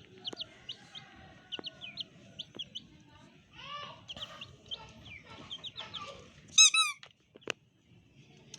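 Chicks peeping in quick, short, high chirps, with a loud squawking call repeated a few times about two thirds of the way in and a single sharp click shortly after.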